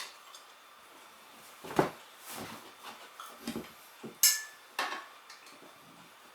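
Metal hand tools clinking and knocking against a spoked motorcycle wheel during a manual tyre change, about five separate strikes. The loudest comes about four seconds in, with a short metallic ring.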